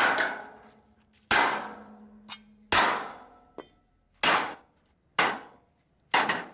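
Six heavy hammer blows on a steel channel laid inside a truck chassis rail, uneven, about a second to a second and a half apart. Each blow is a loud metallic clang that rings out before the next.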